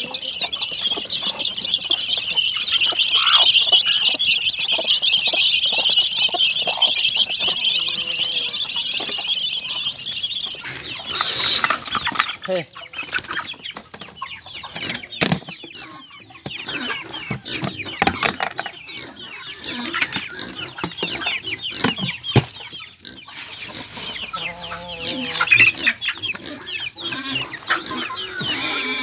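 Chickens clucking in a coop, with some wing flapping. For about the first ten seconds a dense, high chattering chorus sits over the clucks and cuts off suddenly. After that the clucks continue over scattered knocks and clatter.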